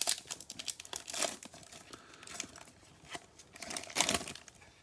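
Wrapper of a Mosaic football card pack crinkling and tearing as it is ripped open and the cards are pulled out: a run of crackles, loudest right at the start, about a second in and again about four seconds in.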